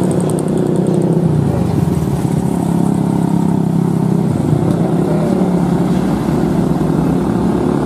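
Heavy diesel trucks, a UD cargo truck and a Mitsubishi container truck, running steadily as they move slowly along a road, with motorcycle engines passing close by.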